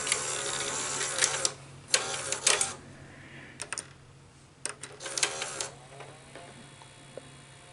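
ED Beta Betamax VCR taking in a cassette: the plastic cassette pushed into the loading basket and the mechanism clattering, then several short groups of clicks as the machine loads and threads the tape, over a faint steady low hum.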